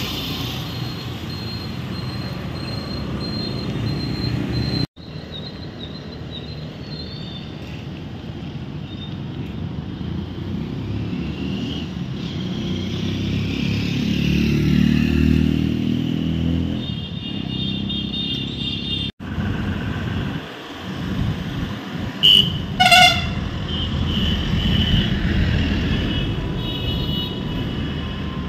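Street traffic: vehicles and motorcycles going by with a steady low rumble, and horns tooting now and then, the loudest two short toots near the end. The sound drops out for an instant twice where the footage is cut.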